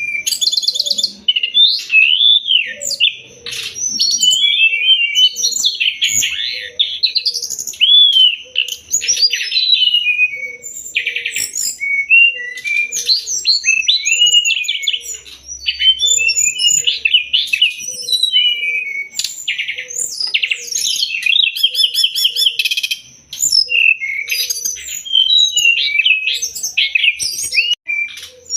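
Brown-chested jungle flycatcher (SRDC) song played as a masteran tutor recording: rapid, varied chirps, whistles and trills with few pauses. Under it a lower call repeats about once a second, and a faint steady high tone runs behind.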